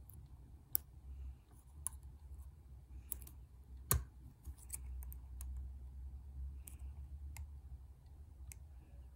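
Lock-picking tools clicking and ticking in a pin-tumbler lock as the pins are worked, about nine sharp separate clicks with the loudest about four seconds in, over a low handling rumble.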